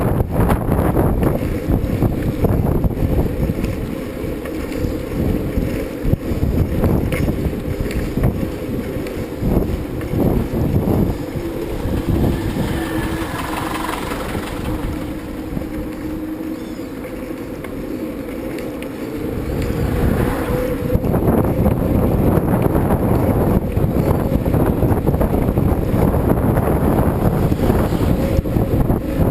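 Steady wind rush buffeting the microphone while riding, with a faint steady drone underneath.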